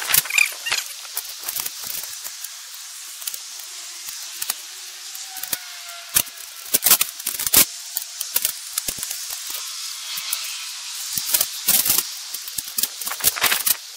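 Sho's B6-kun folding stainless-steel fire grill being unfolded and set up: scattered sharp metal clicks and knocks in clusters, over a steady hiss.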